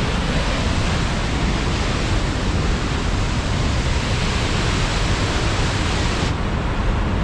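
Yosemite Falls: a loud, steady rush of falling water with no separate sounds in it. The highest part of the hiss drops away about a second before the end.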